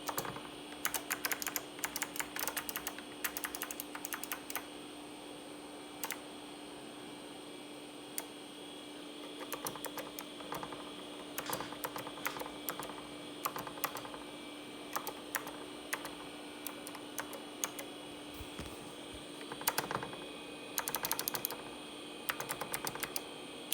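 Typing on a vintage Leading Edge DC-3014 keyboard's clicky mechanical key switches: rapid bursts of keystrokes with short pauses between them, over a faint steady hum.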